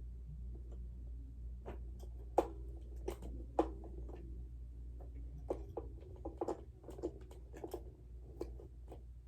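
D-cell batteries being fitted into the plastic battery compartment of a Robosapien V2 robot: irregular clicks and knocks of the cells and plastic, the two sharpest a little over two and three and a half seconds in.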